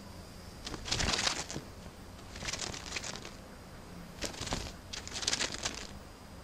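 Young sparrow wriggling its body through the folds of a pair of cotton shorts, the fabric rustling and crinkling in four short bursts.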